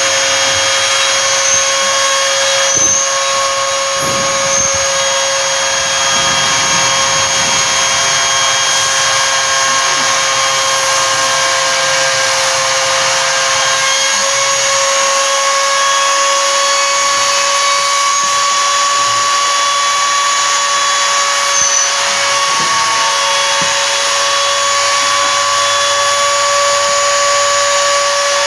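CNC router's trim-router spindle running at speed with a 6 mm end mill, cutting through a 3 mm acrylic sheet: a steady high whine with the hiss of the cutter in the material, unchanging throughout.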